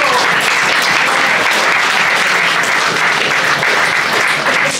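A roomful of people applauding, steady and dense.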